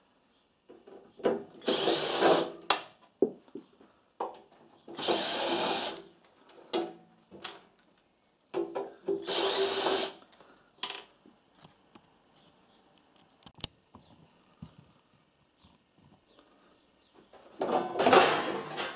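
A power drill-driver running in four short bursts of about a second each, backing screws out of the welder's sheet-metal case. Small clicks and knocks come between the bursts.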